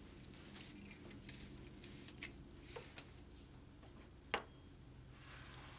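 Strap buckles and webbing of an SCBA harness clinking and rattling as the tightening belts are pulled out of the shoulder harness: a run of light jingling clicks in the first three seconds, the sharpest about two seconds in, one more click a little after four seconds, and a soft rustle near the end.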